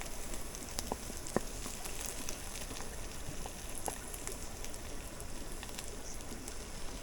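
Food frying in a pan on a wood stove: a steady sizzle with scattered sharp pops and crackles.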